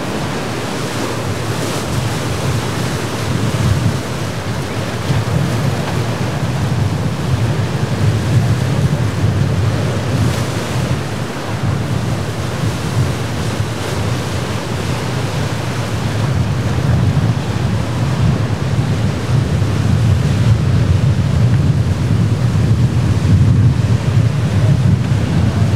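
Waves breaking and surging around jetty rocks, with wind buffeting the microphone: a steady rush of surf with a heavy low rumble.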